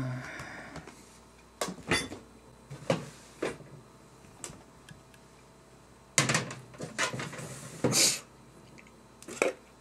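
Refrigerator door opened, with scattered light clicks and knocks of things being handled, and a louder cluster of clatters and rustling about six to eight seconds in as items are moved inside the fridge.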